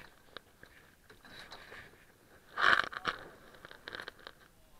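Plastic sit-on-top kayak hulls scraping and knocking against barnacle-covered rock as they are handled at the shoreline. Scattered sharp clicks and scrapes, with one louder scraping rush about halfway through.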